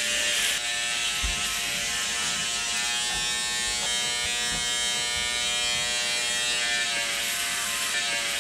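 Electric shaver running with a steady buzz as it is worked over a man's chin and jaw; the buzz cuts off abruptly at the end.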